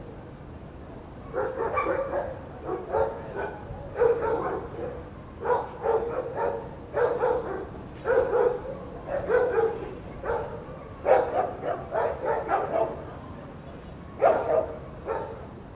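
A dog barking over and over, a long run of short barks in irregular clusters starting about a second in.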